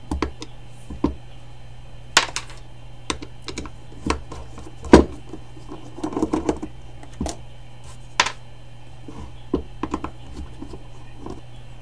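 Irregular clicks and taps of a screwdriver and small screws against a motorcycle brake master cylinder and the tabletop as its reservoir cover screws are taken out, with a short scuffle of handling about six seconds in. A steady low hum runs underneath.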